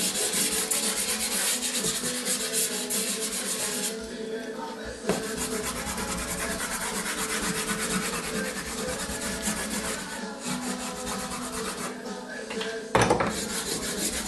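Stick of dry pastel scraping and rubbing across paper in rapid short strokes, easing off briefly about four seconds in. A single thump comes near the end.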